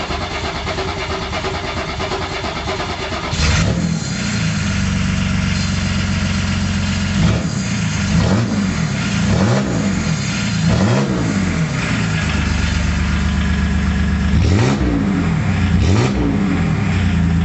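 Volkswagen D24 inline-six diesel cranking on the starter for about three and a half seconds, then catching and running on its first start after the swap, revved up and down in repeated short blips.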